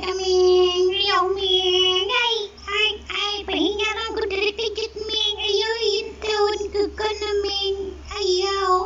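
A high, child-like voice singing in long held notes that waver up and down, phrase after phrase.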